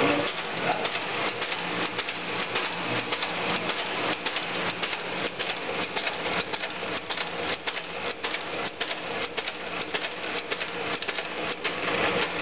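Pama cappelletti and agnolotti pasta machine running, a steady, fast mechanical clatter of many sharp clicks as it cuts rounds out of the dough sheet.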